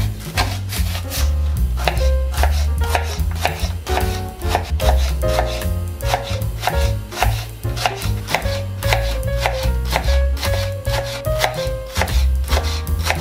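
Knife chopping vegetables on a cutting board: repeated sharp strokes, a few a second, over background music with a steady bass line.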